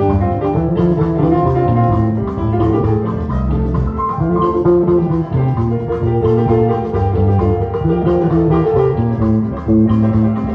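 Band music with a prominent electric bass guitar playing a moving bassline, over guitar and drums.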